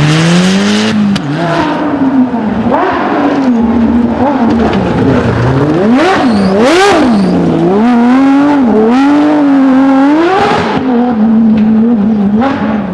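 Rally car engine running hard at high revs, its pitch climbing and dropping repeatedly with gear changes and throttle blips, sharpest about halfway through, then holding steadier near the end.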